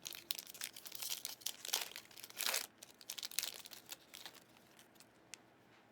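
Trading-card pack wrapper crinkling and tearing as it is opened, a dense run of rustles and crackles that thins out near the end.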